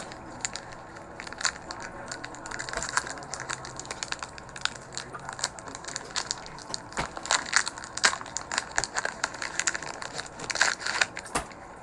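Crinkling and crackling of Pokémon card packaging, a foil booster pack wrapper or the tin's plastic wrap being handled, in irregular bursts that grow denser and louder in the second half.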